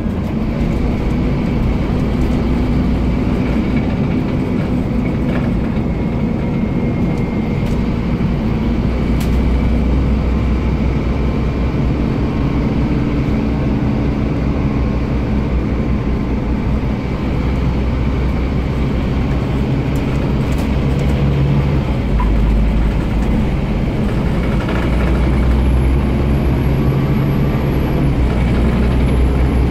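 Scania CN230UB bus's diesel engine running under way, heard from inside the passenger saloon: a steady low engine drone over road and tyre noise, with a few light rattles. The low rumble swells about two-thirds of the way through as the engine pulls harder.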